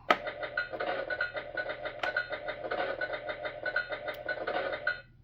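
A click, then a tinny electronic sound clip from the Fisher-Price Great Adventures Magic Castle toy's small speaker, pulsing evenly for about five seconds before cutting off abruptly.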